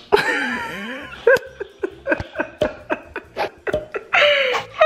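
A woman laughing: a drawn-out opening, then a run of short giggling bursts, and a louder laugh near the end.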